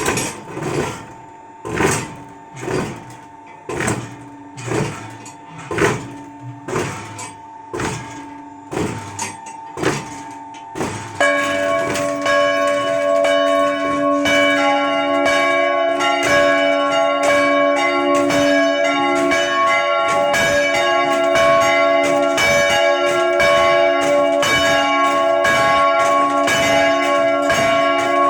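Church bells ringing. A single bell strikes about once a second, then about 11 seconds in another bell joins, and the strikes overlap into continuous ringing.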